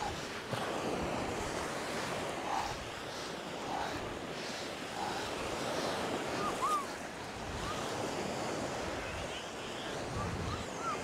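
Small waves washing onto a shingle beach, with wind buffeting the microphone. A few faint short chirps come a little past the middle.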